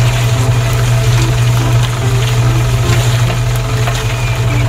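Steady low engine-like hum, like a truck idling, with no change in pitch or level; faint background music with a few stepped notes runs under it.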